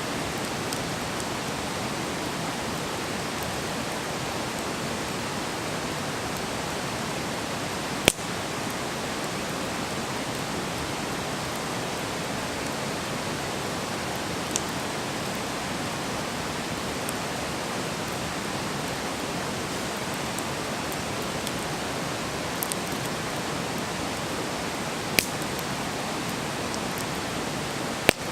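Wood campfire burning with a steady hiss, broken by a few sharp pops of the burning wood, the loudest about eight seconds in.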